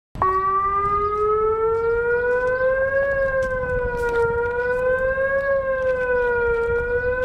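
Civil defense siren sounding a slow, wavering wail. It starts just after a split-second break, climbs in pitch for about three seconds, then gently falls and rises about every two and a half seconds over a crackly, hissing background.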